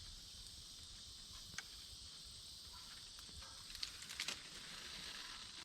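Faint outdoor ambience: a steady, high-pitched drone of insects, with a few soft clicks about four seconds in.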